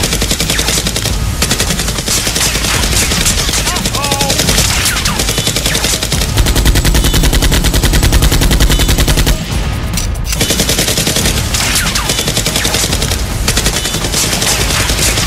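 Automatic-gunfire sound effects dubbed over Nerf blaster fire: long bursts of rapid shots with a short break about nine and a half seconds in.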